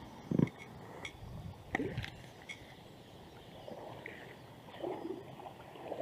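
Soft paddle strokes and water sounds from an inflatable canoe on calm water, with a few short thumps of paddle against hull, and brief bird chirps.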